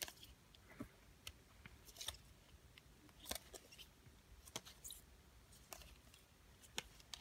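Faint, scattered plastic clicks and taps from hockey cards in rigid plastic top-loaders being flipped through by hand, the hard holders knocking against each other about a dozen times.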